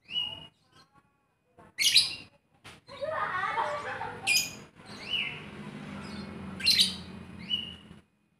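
Lovebird calling: sharp, shrill chirps and short squawks, some gliding in pitch, with a dense, continuous stretch of chatter from about three seconds in that stops abruptly near the end.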